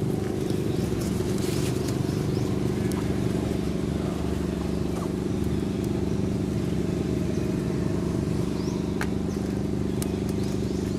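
A steady low mechanical hum, like an engine or motor running at an even speed, with a few faint sharp clicks.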